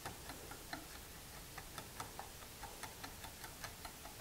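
Wire whisk clicking against the sides of a glass measuring cup as a thin sauce is whisked: a run of faint, light clicks, about four a second.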